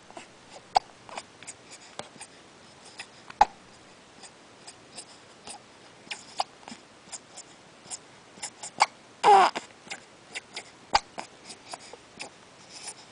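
A baby hiccuping repeatedly at irregular intervals, each hiccup a short sharp catch, with one short coo falling in pitch about nine seconds in.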